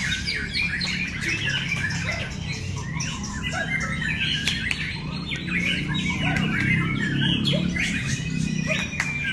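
Several caged white-rumped shamas (murai batu) singing at once: dense, overlapping whistled phrases and sharp notes.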